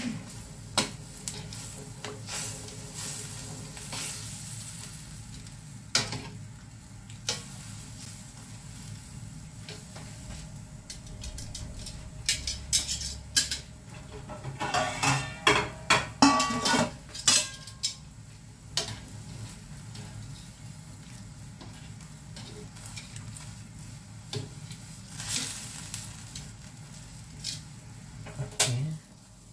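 Metal kitchen tongs clicking and scraping against a frying pan as chicken pieces are turned in water to blanch and clean them. The clacks come in scattered clusters, busiest around the middle, over a steady low hum.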